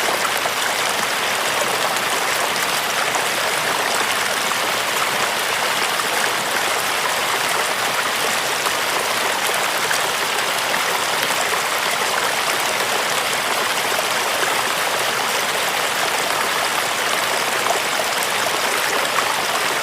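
Running water, a steady even rush like a flowing stream with no breaks or pauses.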